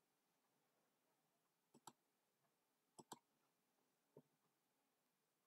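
Faint computer mouse clicks: two about two seconds in, a quick double click about three seconds in, and one more just after four seconds.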